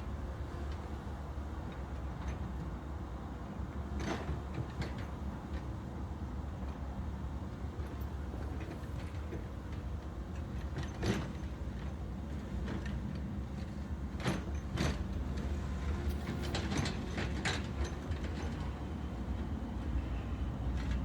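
A backhoe loader's engine running steadily with a low rumble, with a few sharp metallic knocks and clanks scattered through it, several of them close together in the second half.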